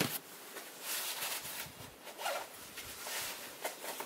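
A knock as the camera is set down on a wooden windowsill, followed by irregular rustling and scraping noises, with a short squeak about two seconds in.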